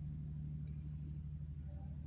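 Steady low machine hum with a fast, even flutter in its loudness.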